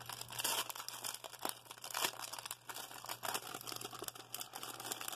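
Clear plastic bag crinkling and crackling in irregular little bursts as it is handled and opened to take out a keychain charm on a card.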